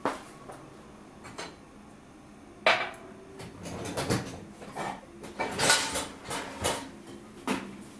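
Dishes and utensils clinking and knocking as they are handled: a few scattered clicks, a sharp knock just under three seconds in, then a busier run of clinks and knocks through the second half.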